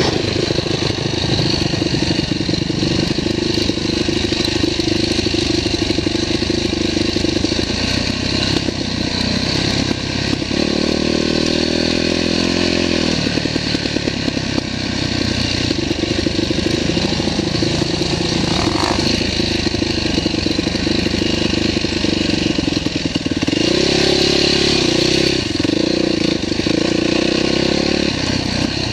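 Dirt bike engine running under way on a trail, heard from a camera mounted on the bike, its note rising and falling with the throttle. Twice, about ten seconds in and again near the end, a higher, steadier engine note stands out for a few seconds.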